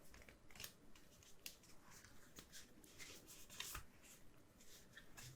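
Quiet, scattered clicks and soft rustling of oracle cards being handled and slid across one another as the next card is turned up.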